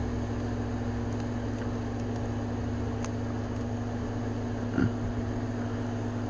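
Steady low mechanical hum of a running appliance in the room, with a few faint clicks as the action figure's ratcheted elbow joint is moved.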